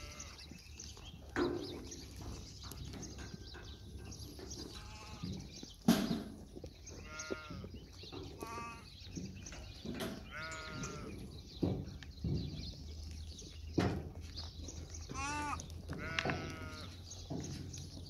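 Goats bleating, about six quavering bleats spread through, with several sharp knocks in between, the loudest about six seconds in.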